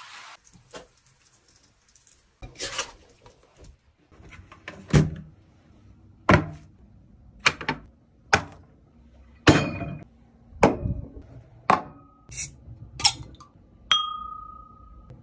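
Dishes and tableware knocking and clinking, a dozen or so separate sharp knocks about one a second, several with a dull thud. Near the end a glass gives a clear clink that rings on for about a second.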